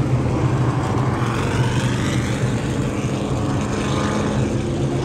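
A field of dirt modified race cars' V8 engines running together around the track. One car's engine note rises and then falls as it passes.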